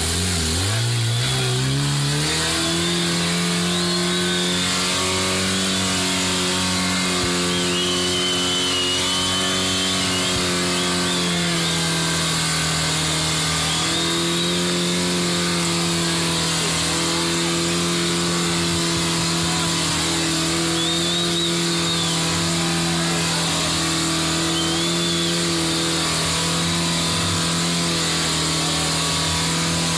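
Off-road trial vehicle's engine revving up over the first couple of seconds, then held at high revs, wavering only slightly. A few faint high squeaks come through over it.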